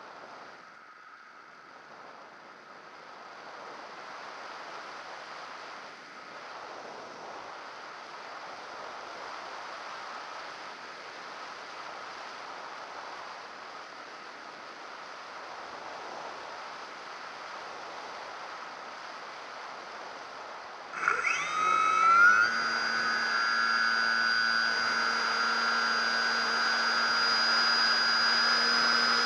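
Wind rushing past a radio-controlled model airplane in gliding flight, heard from its onboard camera. About two-thirds of the way in, the plane's motor starts up, its high whine climbing quickly in pitch and then holding steady and much louder.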